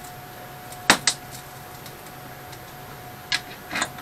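Hand ratchet with a socket tightening bolts, its pawl ticking lightly between strokes, with sharp metal clicks twice about a second in and twice near the end.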